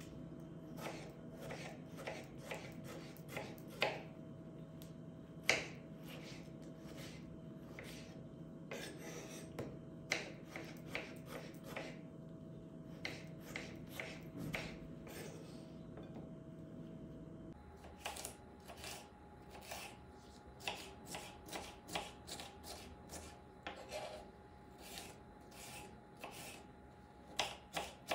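Kitchen knife chopping peeled tomatoes and then a red capia pepper on a wooden cutting board: a string of soft, irregular knocks as the blade meets the board. In the second half the knocks come faster and more evenly.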